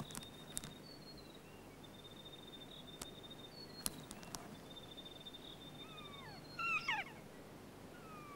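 Kea calling near the end: a few drawn-out cries that slide downward in pitch, the loudest sounds here. Earlier there is a thin high trill, repeated about three times, and a few sharp clicks.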